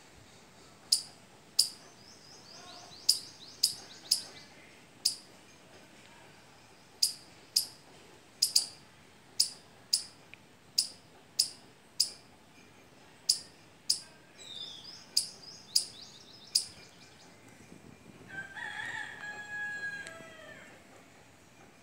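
Palm squirrel giving a series of sharp, high-pitched chirping calls, about twenty, one or two a second with short pauses. Near the end, a longer, lower drawn-out call from another animal.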